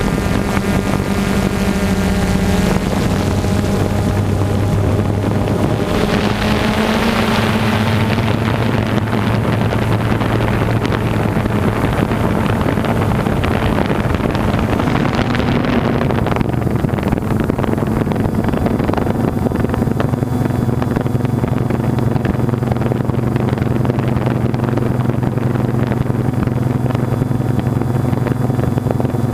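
An engine running steadily, its hum stepping up and down in pitch a few times, over a constant rushing noise.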